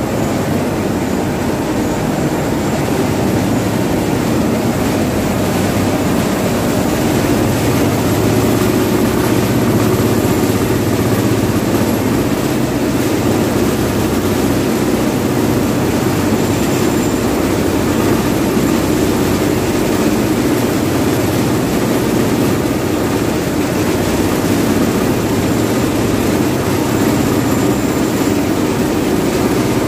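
Cotton ginning machines running in a mill hall: a loud, steady mechanical drone with a constant low hum.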